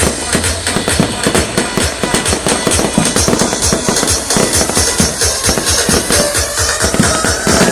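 Fireworks going off in rapid succession, a dense run of bangs and crackling pops, with music playing at the same time.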